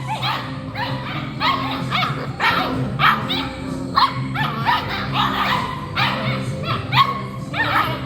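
Seven-week-old puppies yipping and barking in short, high cries, roughly two a second, over steady background music.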